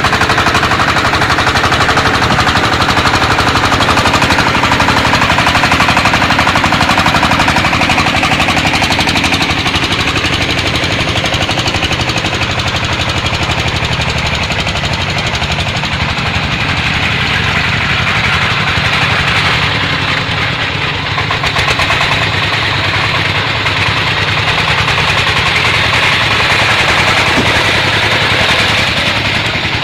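Single-cylinder diesel engine of a công nông farm truck running steadily, its exhaust a rapid, even train of sharp pops.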